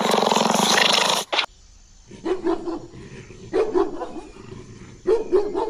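A serval growling, a loud, raspy sound that cuts off suddenly about a second and a half in. After a short quiet, a string of short pitched animal calls follows in clusters of two or three.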